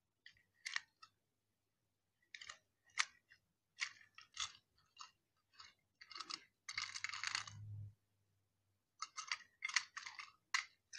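Small toy train being handled: scattered light clicks and taps as it is picked up, turned and set down, with a longer rubbing rustle about seven seconds in.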